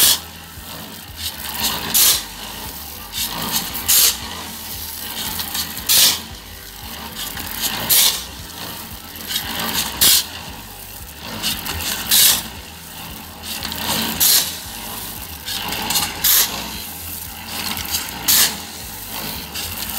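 A steel shovel scrapes into a pile of crushed-stone gravel about every two seconds, each scoop a short, sharp rasp, as gravel is shovelled for a concrete batch. Under it runs the steady low hum of a running concrete mixer.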